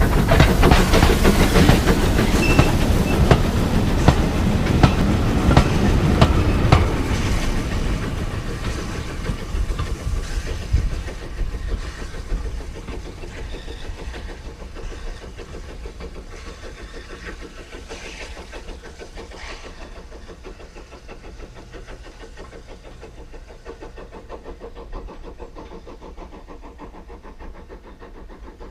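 A steam train, hauled by the LB&SCR A1X 'Terrier' 0-6-0 tank engine No. 8 Knowle, running away down the line just after passing. Its carriage wheels clatter and click over the rail joints, loud at first, then fading over about ten seconds into a faint distant sound as the train recedes.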